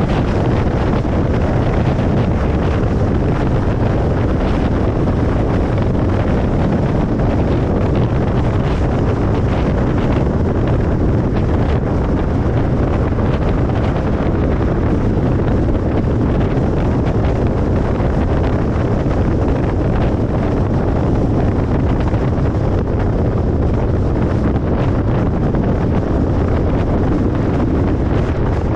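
Steady road noise of a car travelling on a highway: an even rush of tyre and wind noise, heaviest in the low end, with no changes.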